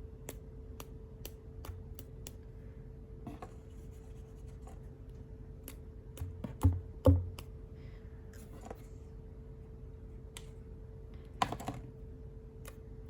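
A paintbrush being flicked to spatter paint flecks, giving a string of small, irregular ticks and clicks, with a few louder knocks around the middle and again near the end. A steady faint hum runs underneath.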